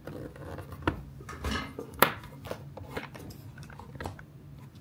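Lenovo ThinkPad P15 Gen2 laptop being turned over and handled on a wooden desk: a scatter of small clicks and knocks, the sharpest knock about two seconds in.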